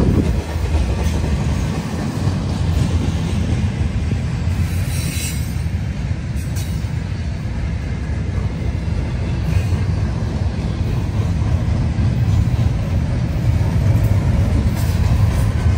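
CN freight train cars rolling past on the rails: a steady rumble of steel wheels on track, with a brief high wheel squeal about five seconds in.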